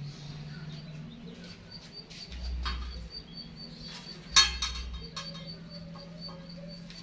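Metal clinks as a roast chicken on its hook is set down on a metal serving tray, the sharpest about four seconds in. Behind it a bird gives a short high chirp over and over, about three times a second.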